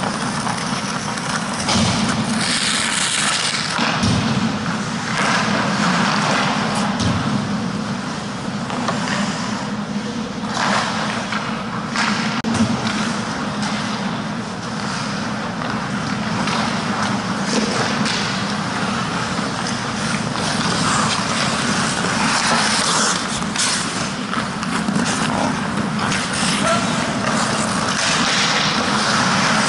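Ice hockey play heard from a goalie's helmet camera: a continuous scraping rush of skates on ice, broken by scattered sharp clacks and knocks of sticks and puck.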